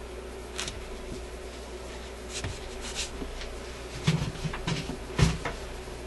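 Scattered light clicks and knocks from small parts and tools being handled on a workbench, with a heavier knock about five seconds in, over a steady low hum.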